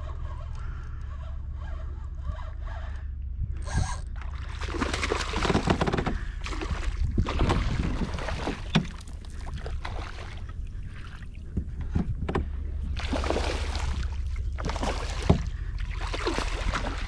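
Hooked snook splashing and thrashing at the water's surface beside a kayak, in repeated bursts from about four seconds in, with a couple of sharp knocks along the way.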